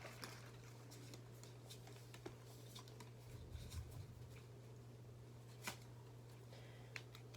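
Near silence: room tone with a low steady hum, and faint rustling and soft ticks of game cards being handled, a couple of slightly louder ticks near the end.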